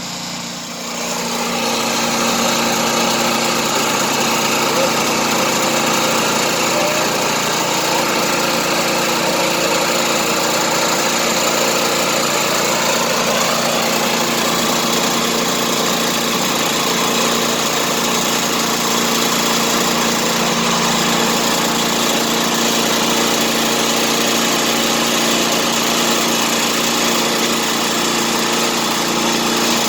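Small gasoline engine of a portable bandsaw sawmill running steadily, growing louder over the first two seconds and then holding an even pitch.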